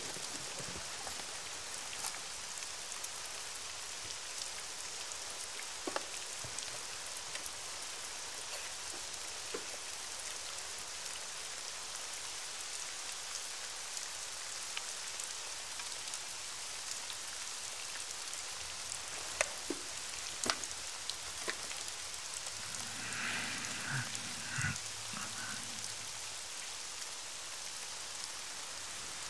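Steady rain falling, with scattered sharp drop hits. About 23 seconds in, a brief pitched sound rises over the rain for a couple of seconds.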